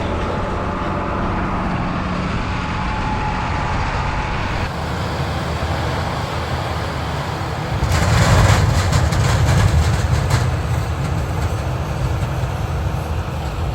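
Heavy beet-harvest machinery running steadily. It gets louder about eight seconds in, with a couple of seconds of fast clattering rattle.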